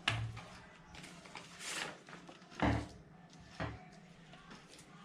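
A few light knocks and a short rustle: three soft thuds, the loudest about two and a half seconds in, with a brief rustle between the first two.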